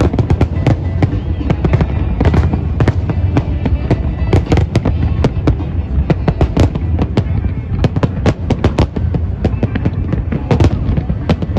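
New Year fireworks display: a dense, continuous barrage of bursts, rapid cracks over deep booms, many per second, with music playing underneath.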